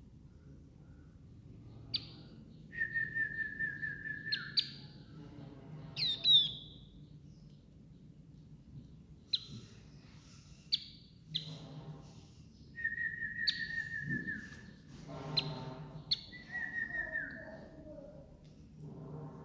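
Young pet birds calling: repeated short, sharp high chirps mixed with three longer held calls at a steady pitch, each lasting about a second to a second and a half.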